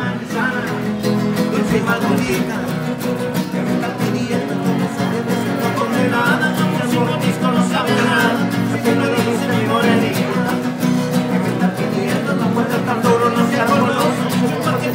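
Two men singing together while strumming acoustic guitars, a live song with a steady strummed rhythm.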